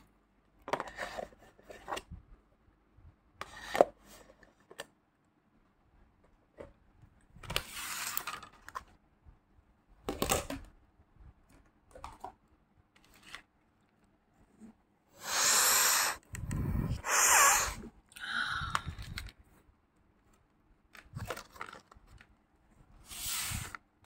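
Plastic containers of mothballs and crushed naphthalene being handled: scattered short scrapes and clicks, with a longer, louder stretch of scraping about two-thirds of the way through.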